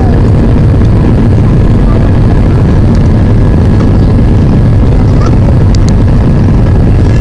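Steady, loud cabin noise of a jet airliner climbing after takeoff: the turbofan engine's drone and rushing airflow heard from inside the cabin, heaviest in the low range, with faint steady tones above.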